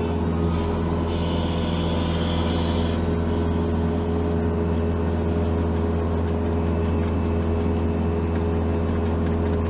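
Case TV450 compact track loader's diesel engine running at a steady speed, with a brief higher hiss about a second in.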